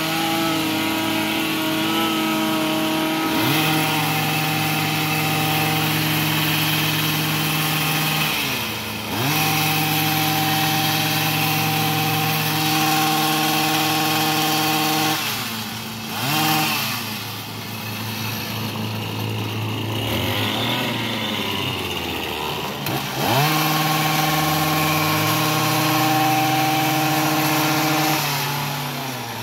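Gas hedge trimmer's small engine running at high throttle while cutting shrubs. It eases off and revs back up several times, with a lower-running stretch through the middle before climbing again.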